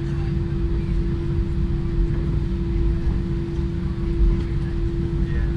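Cabin of an Airbus A320-232 taxiing at low thrust, heard from inside: a steady engine and cabin hum with one constant tone over a low rumble, and a couple of soft bumps from the wheels on the taxiway.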